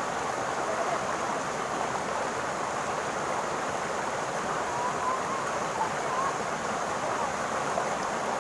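Steady rushing of running water, even and unbroken, with a few faint brief chirps about five to six seconds in.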